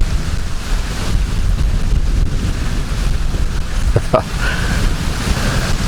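Wind buffeting the microphone in a steady low rumble, over the hiss of rain falling. Two short knocks come about four seconds in.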